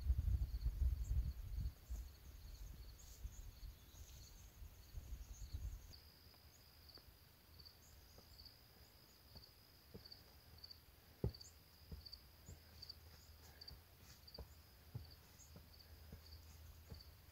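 Insects trilling steadily in dry prairie grass, a high, even chirr pulsing about twice a second. Wind buffets the microphone for the first few seconds, and faint footsteps scuff along the trail after that.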